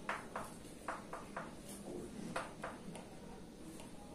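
Faint scratching writing strokes, short and at an uneven pace, about two a second.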